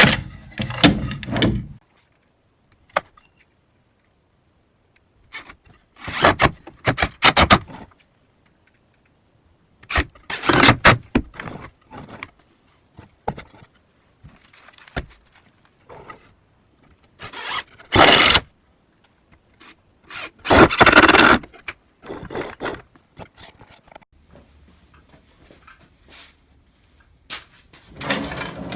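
Woodworking shop noise in separate bursts of about a second each, roughly six of them with quiet gaps between, including squealing and scraping.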